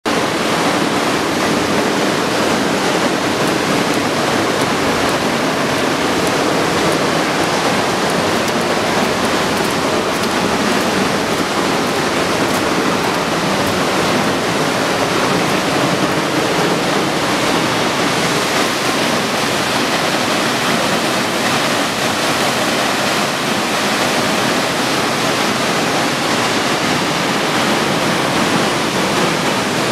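Steady rush of falling water from a waterfall, an even unbroken noise.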